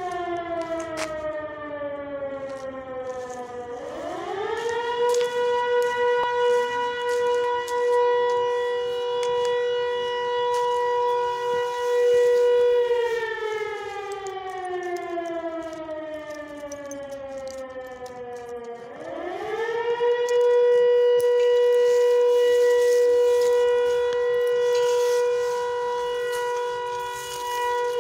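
Civil-defence air-raid siren sounding an alert: one long wailing tone that falls, rises about four seconds in and holds steady, slides slowly down, then rises again about nineteen seconds in and holds.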